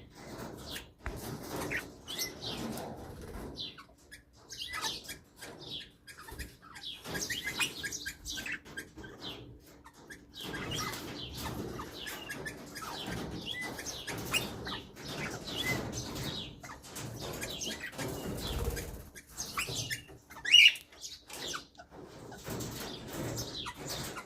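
Pet parrots chirping and chattering in a busy, irregular stream of short calls, with one sharp, louder call near the end.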